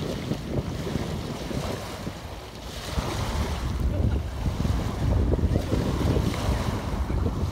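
Small waves lapping and washing onto a pebble beach, swelling about three seconds in and again near the end, with wind buffeting the microphone.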